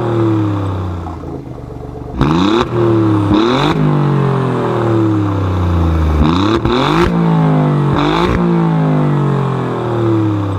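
A car engine revved repeatedly: about four quick blips that sweep the pitch up, each followed by a slow fall in revs, with sharp cracks around the blips.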